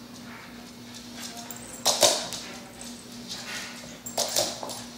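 A small dog's sharp yaps: a loud one about two seconds in and a quick pair just after four seconds, with fainter ones between.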